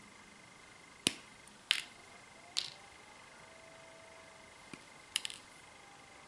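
A few sharp clicks spread over a few seconds, the loudest about a second in, from small side cutters snipping the ends of thin stranded wires. A faint steady high whine runs underneath.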